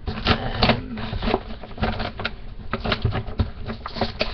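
A small boxed item and its packaging being handled close to the microphone: irregular rustling with many sharp clicks and taps.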